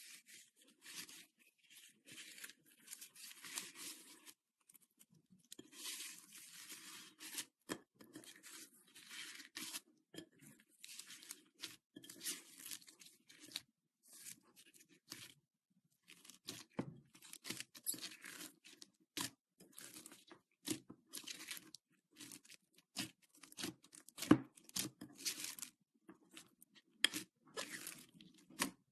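Slime being squeezed, stretched and pressed by hand: irregular sticky crackling broken by sharp pops.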